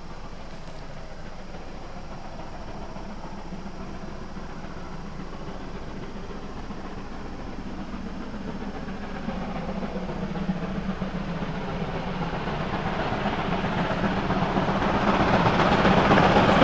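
DR class 50 2-10-0 steam locomotive 50 3708-0 approaching with a passenger train, its exhaust and running noise growing steadily louder as it draws near.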